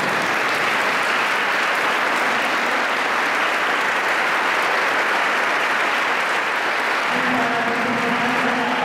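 A large crowd applauding steadily and densely. About seven seconds in, a held musical note begins underneath the clapping.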